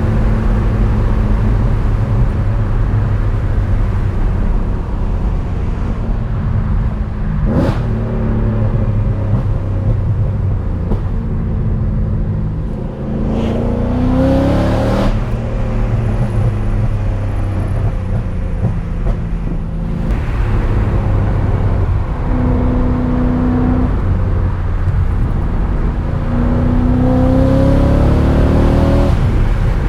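BMW E39 M5's 4.9-litre V8 driven hard, with road noise underneath: the engine holds a steady note, then climbs in pitch as it accelerates, once near the middle and again near the end. A sharp knock sounds about seven and a half seconds in.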